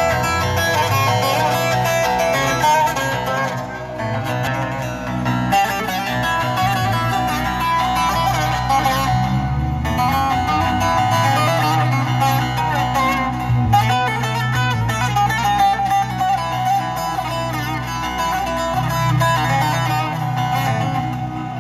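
Loud instrumental music played through a stage sound system: a plucked-string melody over a sustained bass line.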